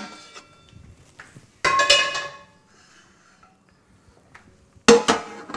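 Metal cookware clanking as a large frying pan is pulled out of a cabinet: a loud ringing clang about a second and a half in, then a sharp clank near the end.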